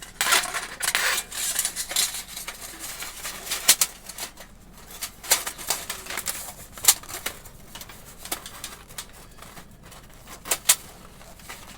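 Thin titanium stove parts clinking and clicking against each other as a forgotten piece is fitted in, with scattered sharp metallic clinks and some rustling handling in the first couple of seconds.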